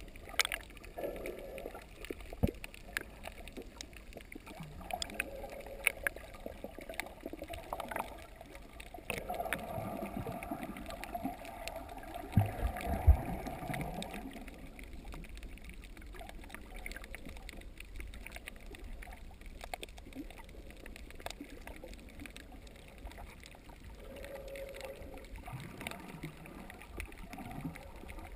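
Muffled underwater water noise picked up by a submerged camera: gurgling and sloshing water with scattered small clicks, and a few low knocks about halfway through.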